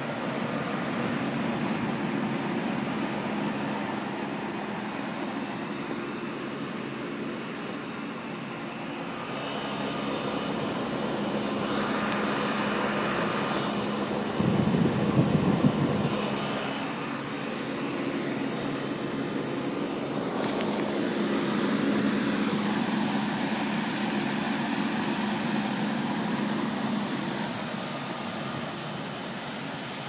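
Outdoor unit of a 1989–90 Trane Weathertron heat pump running: a steady hum with the rush of its fan, swelling and easing in level. There is a brief louder rumble about halfway through.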